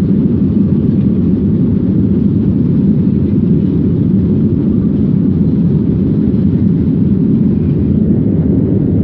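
Airliner cabin noise: a steady, deep rumble of engines and airflow that holds even throughout.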